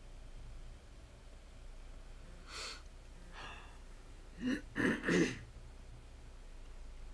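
A person close to the microphone coughs three times in quick succession, after a shorter breathy sound a couple of seconds earlier.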